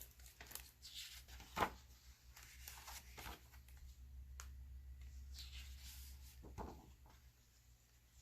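Faint rustles and a few soft taps of a picture book's paper pages being handled and turned, over a low steady hum.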